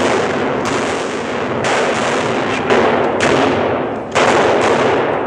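Staged blank gunfire: several sharp bangs about a second apart, each trailing off, over a steady rush of noise.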